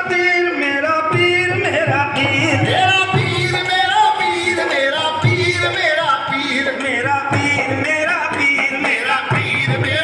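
Qawwali: men singing a devotional song to harmonium and dholak drum, with the drum keeping a steady beat under the voices.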